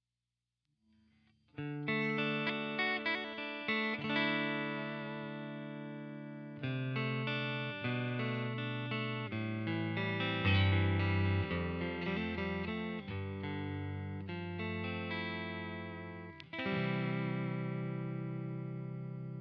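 Electric guitar, a Fender Stratocaster, played through a UAFX Dream '65 Reverb amp pedal: chords and single notes starting about a second and a half in, with a final strummed chord left to ring near the end.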